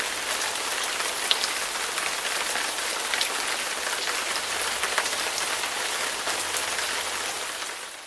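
A steady, dense crackling hiss, fading out near the end.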